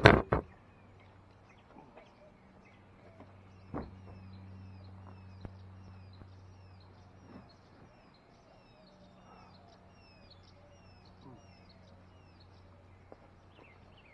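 A bird singing a long run of short, downward-sliding chirps, about two a second, over a faint steady low hum. There is a single knock about four seconds in.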